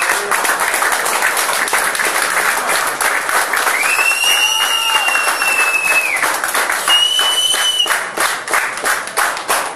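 Audience clapping throughout the posing routine, with long high whistles from the crowd, one at about four seconds lasting about two seconds and a shorter one at about seven seconds; near the end the applause thins into separate claps.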